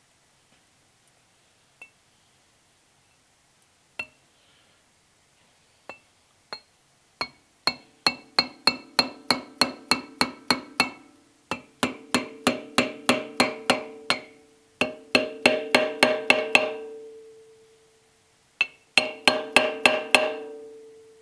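A small shop hammer (a 'knocker') tapping on a cast-iron Delta jointer part. A few light, spaced taps come first, then quick runs of about four to five taps a second, each strike ringing briefly with a metallic ring.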